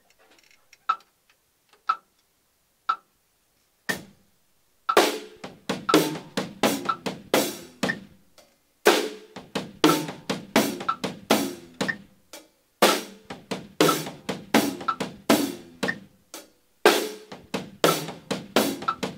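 Acoustic drum kit playing a short linear groove: kick, snare, then kick-kick-tom figures with the hi-hat struck together with each tom. It is played four times with short breaks between, after four clicks about a second apart count it in.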